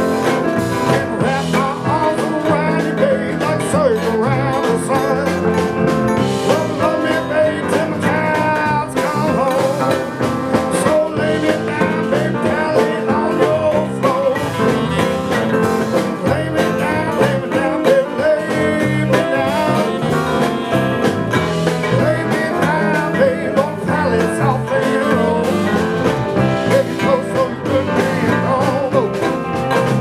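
A band playing a country-blues song live, with guitar and a singing voice.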